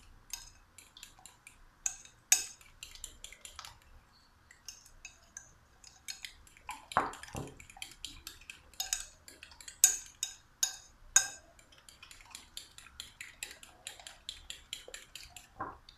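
Metal spoon beating eggs in a cut-glass bowl: quick, uneven clinks of metal against glass, several a second, with a few sharper knocks among them.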